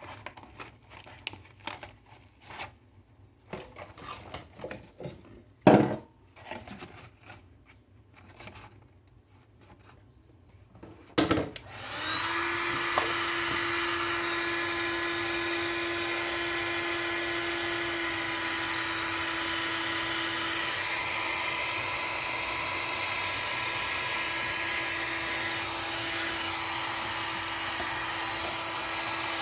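Plastic bottle being handled with small clicks and crinkles and two sharp knocks. About twelve seconds in, a heat gun switches on and runs steadily: an even rush of blown air with a steady whine, softening the plastic.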